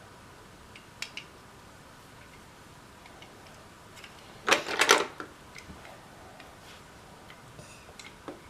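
Light clicks and knocks of small hard objects being handled: one click about a second in, then a brief clatter of several sharp knocks about halfway through, with faint scattered ticks between.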